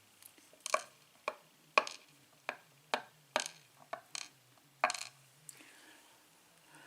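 Parts of a disassembled pin-tumbler lock being handled: about a dozen sharp, irregular clicks and taps, roughly two a second, stopping about five seconds in.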